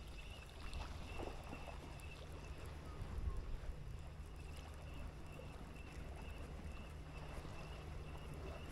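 Steady low engine hum, most likely a boat motor out on the water, over faint wind and water noise.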